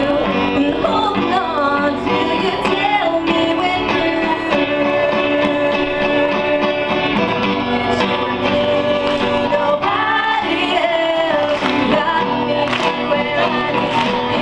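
A song: singing over a steady instrumental backing.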